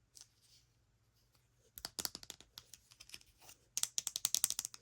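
Small plastic pieces being handled by hand: two bursts of rapid clicking and crinkling, the second louder, near the end.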